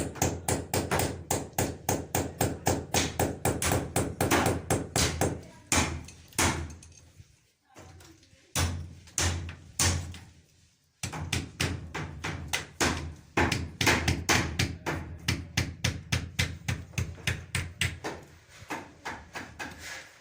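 Rapid, regular hammering or knocking, about three to four blows a second, stopping briefly twice near the middle.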